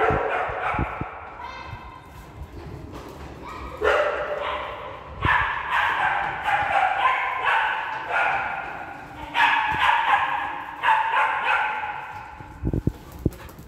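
Pet dogs barking and yipping excitedly during play, in stretches of a few seconds with short pauses. A few sharp knocks near the end.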